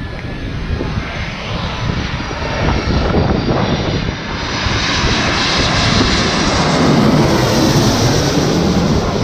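Twin-engine jet airliner on landing approach with gear down, passing low overhead: jet engine noise that grows louder from about halfway through, with a high whine rising over the rumble, and is loudest near the end as the plane goes directly overhead.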